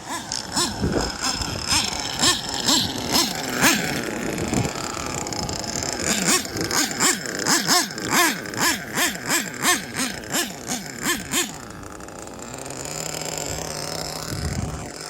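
Nitro glow engine of a Kyosho Inferno NEO ST 3.0 RC car revving in quick repeated throttle blips, about two a second, then settling to a steadier, lower running note about three-quarters of the way through.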